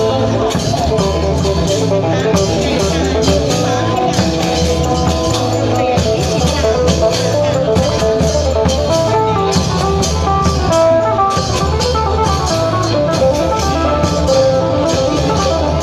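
Loud show music: a plucked-string melody over a steady drum beat.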